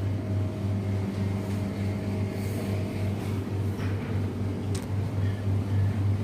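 Steady low machine hum with fainter steady tones above it, and a brief click about five seconds in.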